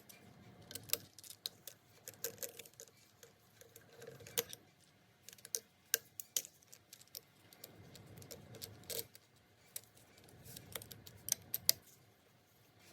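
Irregular sharp clicks and light metallic taps of a hex (Allen) key and small screws being worked out of a Cummins VE injection pump, with handling rustle between them and a faint steady hum underneath.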